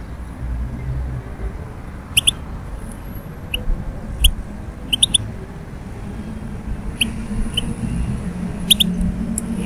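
European goldfinch giving short, sharp chirping call notes, some in quick pairs, every second or two.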